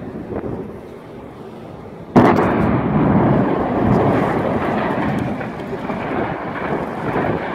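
Demolition charges going off in an unfinished 18-storey concrete skeleton high-rise: a sudden loud blast about two seconds in, then a long rumble as a third of the building collapses.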